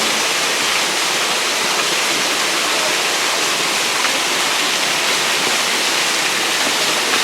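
Stephens Falls, a small spring-fed waterfall, pouring close by: a loud, steady rush of falling water that does not change.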